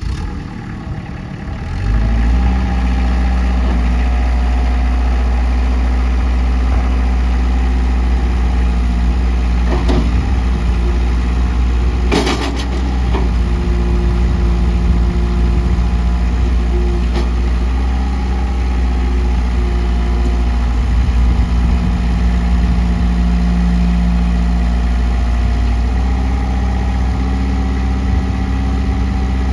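Kubota L5030 HST tractor's four-cylinder diesel engine running steadily, stepping up to a louder, faster run about two seconds in while the front loader is raised and lowered. A sharp clunk comes about twelve seconds in.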